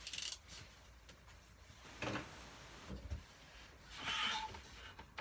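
Packaging and foam model-airplane parts being handled: a brief rustle at the start, soft knocks around two and three seconds in, and a longer rustle about four seconds in.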